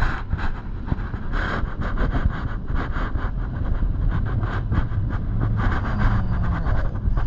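Car driving at low speed: a steady low rumble of engine and tyres, with frequent small clicks and rattles over it.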